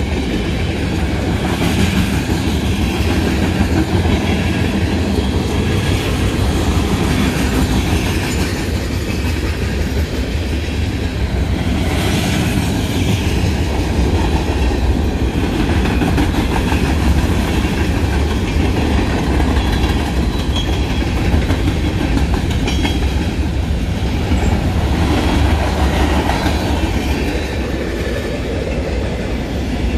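Mixed freight train rolling past, its steel wheels clattering over the rails in a steady, loud rumble.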